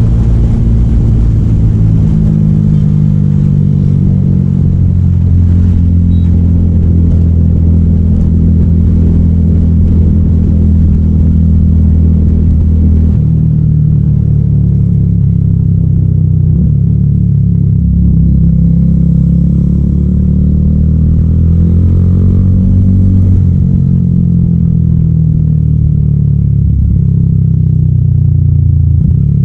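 Exhaust note of a 300SR motorcycle fitted with an Akrapovic M1 exhaust, running loud and steady. The engine speed shifts about two seconds in and again around thirteen seconds, with a brief rise and fall in pitch around twenty seconds.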